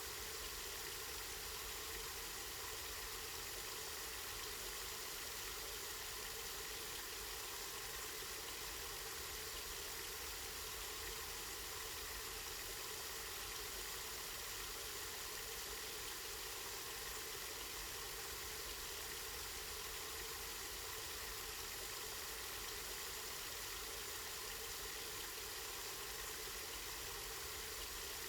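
Spring water running and splashing steadily, an even rushing noise that doesn't change.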